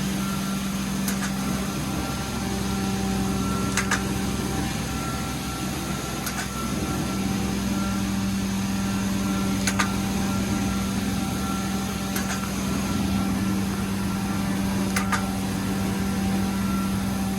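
Carpet-cleaning extraction machine running with a steady hum, with a sharp click every two to three seconds.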